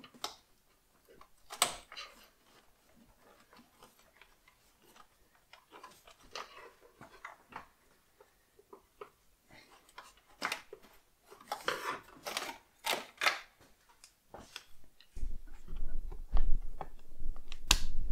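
Scattered clicks and knocks of hands and plastic parts as the intake camshaft sensor's electrical connector is unplugged and the sensor is worked out of the engine, growing busier about ten seconds in, with dull low thumps in the last few seconds.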